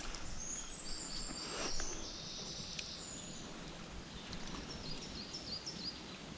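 Water splashing from a trout in a landing net in shallow water at the bank, with one splash about two seconds in. Birds chirp in the background.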